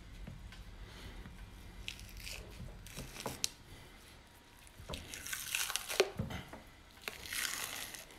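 Silver skin being peeled off the bone side of a rack of raw pork ribs: wet tearing and squishing in several stretches, loudest in the second half, with a couple of sharp clicks.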